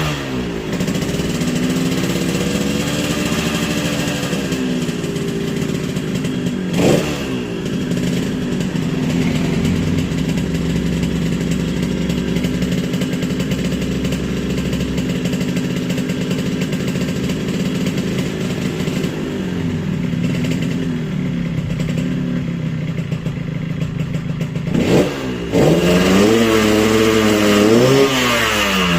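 Yamaha RX-King two-stroke single-cylinder engine running near idle and being blipped as it is tuned for 'ngorok', its deep growling idle note. The revs rise and fall gently, with two sharp quick blips, and the engine is revved louder and higher, up and down, in the last few seconds.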